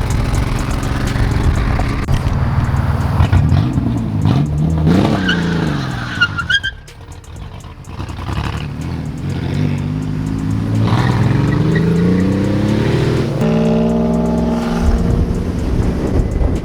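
Chevrolet Camaro's engine revving hard while doing donuts, its pitch climbing and falling, dropping off briefly about halfway, then climbing again and holding high near the end, with tyres skidding.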